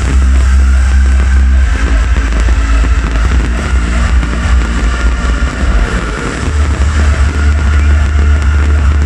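Loud hardstyle festival music from the main stage sound system, dominated by a heavy sustained bass that eases off for a few seconds in the middle and comes back.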